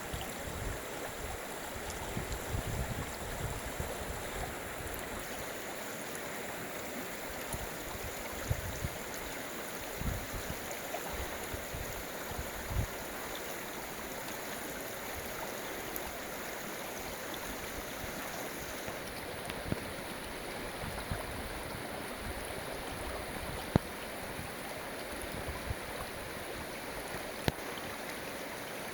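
Steady rush of flowing water, like a stream, with a few brief low thumps in the first half and scattered faint clicks.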